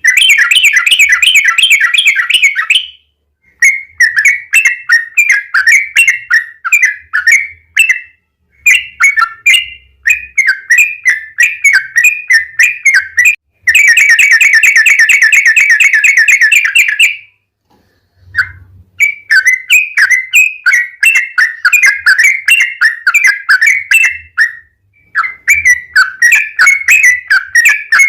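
Yellow-vented bulbul (trucukan) singing a long, rapid rolling song, loud. Fast bubbly phrases of repeated notes are broken by short pauses, with one long, even trill about halfway through.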